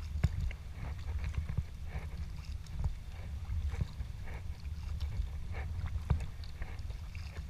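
Sea kayak paddling: the paddle blades dip and splash in the sea at an uneven pace, with sharper splashes just after the start and about six seconds in, over a steady low rumble.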